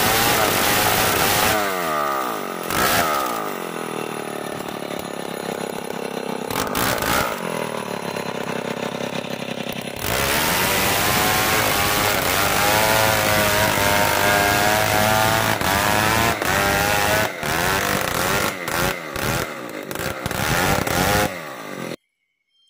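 Old Stihl chainsaw ripping hard marsawa batu timber lengthwise into beams. The engine drops from high revs toward idle about two seconds in, revs back up to full cutting speed about halfway through, runs unevenly near the end, and the sound cuts off suddenly just before the end.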